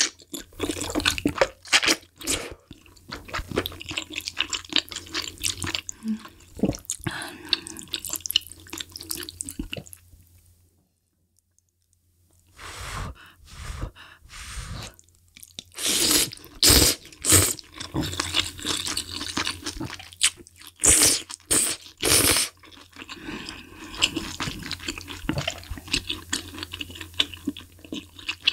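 Close-miked eating of malatang, a spicy Chinese hot-pot soup: wet slurps of broth from a spoon and of noodles, with chewing between them. The sound drops out for about two seconds about a third of the way in, and the loudest slurps come in the second half.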